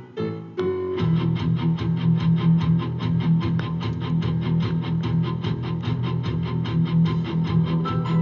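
Guitar-driven music played for a Christmas light show. A few separate hits come first, then about a second in a fast, even pulse of about five strokes a second sets in.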